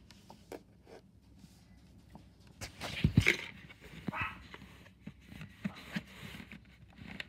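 Slime being squished and pressed by hand on a tabletop, giving soft sticky clicks and pops, with a louder thump about three seconds in.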